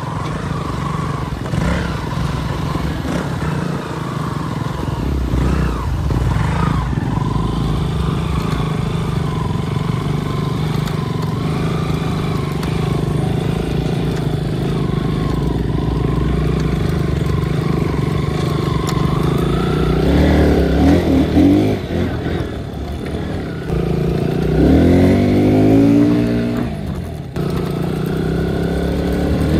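Motorcycle engines running on a rough dirt trail, revving up twice in the latter part.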